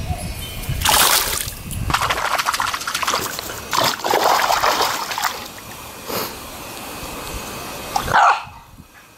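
Boston Terrier wading and pawing in shallow water in a plastic kiddie pool, splashing in several bursts. A brief voice near the end.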